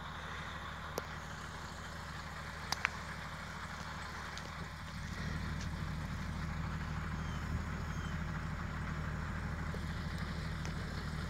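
Faint, distant bullwhip cracks: one sharp crack about a second in and a quick double crack near three seconds, over a steady low hum that swells slightly about halfway through.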